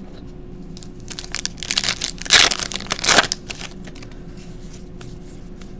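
Foil wrapper of a 2015 Topps Valor Football card pack being torn open and crinkled by hand: a run of crackling rustles between about one and three seconds in, loudest near the middle.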